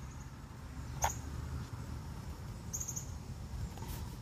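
Low rumble of wind on the microphone, with a few faint clicks and short high ticks: one about a second in, a pair of ticks near three seconds, and another click about four seconds in.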